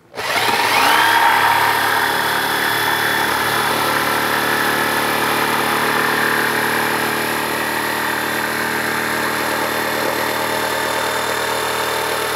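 Corded jigsaw starting up and cutting a soft Western red cedar board. The motor whine rises to speed in the first second, then holds steady.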